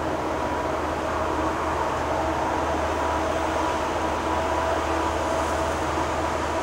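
Distant diesel freight locomotives, an SD80MAC and an SD70 in the lead, approaching: a steady rumble and hiss with a faint steady whine over it.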